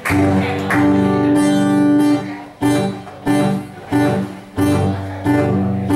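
Cutaway acoustic guitar strumming chords that are left to ring, at a steady pace, as the opening of a song before the singing begins.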